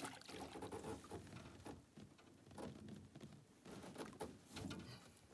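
A hooked pike thrashing at the surface beside an aluminium boat: faint, irregular water splashing and pattering.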